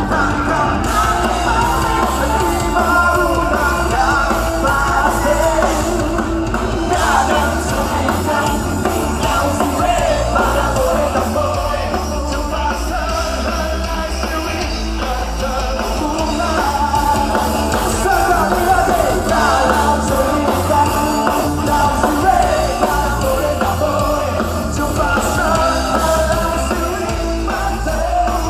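A live band playing with singing, loud and continuous.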